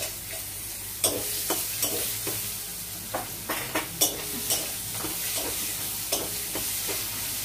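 Chopped onions sizzling in hot oil in a metal kadai. A metal spatula scrapes and knocks against the pan about twice a second as they are stirred, and the sizzle picks up about a second in.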